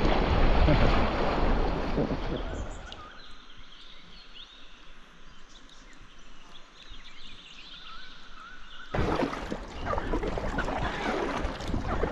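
River whitewater rushing loudly around a packraft as it runs a rapid. It gives way after about three seconds to a much quieter stretch with faint chirps. Splashy paddle strokes and water noise start abruptly about nine seconds in.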